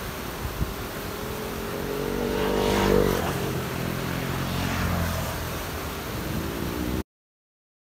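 A motor vehicle passes close by. Its engine note swells and its pitch drops as it goes past, loudest about three seconds in, over a steady rushing background. The sound cuts off abruptly near the end.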